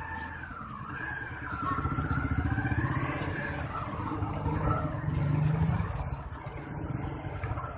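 A motorcycle passing on the street, its engine growing louder to a peak about five and a half seconds in and then easing off. A thin wavering high tone rises and falls above it for the first few seconds.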